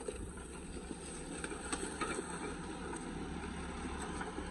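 Mahindra Thar SUV and tractor engines running under load as they pull against each other in a tug of war: a steady engine noise, with wind rumbling on the microphone.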